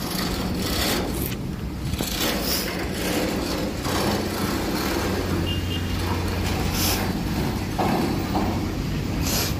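Shipyard machinery running with a steady low drone, with short bursts of hissing noise and clatter several times over it.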